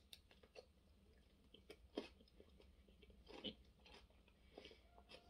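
Faint chewing of a mouthful of egg: soft, scattered mouth clicks and wet smacks, a couple slightly louder about two and three and a half seconds in.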